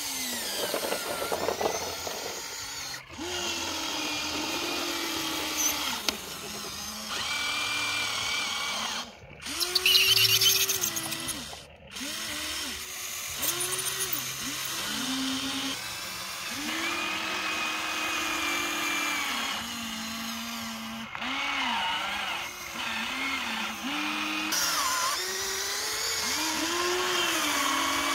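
Small electric motors and gearboxes of a Huina radio-controlled excavator whining in short runs as the boom, arm and bucket move, each run rising and falling in pitch. A brief, louder rattle comes about ten seconds in.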